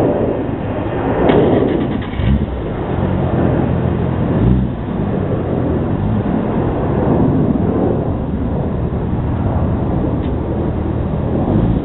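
Audi S4's twin-turbo V6 running through a custom exhaust, revved in several swells in the first few seconds and then running more steadily.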